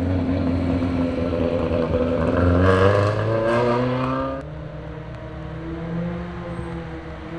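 Rally car engine running loud, its note climbing as it revs. About two-thirds of the way through it drops suddenly to a quieter, steady, lower engine note.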